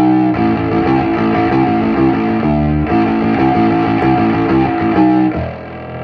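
Fretless electric bass played through an amplifier, a quick line of plucked notes, then notes left ringing a little over five seconds in.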